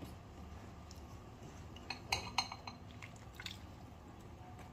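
Metal spoon clinking against a glass bowl while stirring milk into ground biscuit powder, a quick run of light clinks about two seconds in and a few more a little later.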